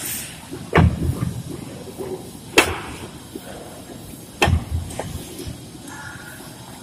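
Concrete hollow blocks set down one at a time onto a stack of blocks: four sharp knocks of block on block, at uneven gaps of a half to two seconds.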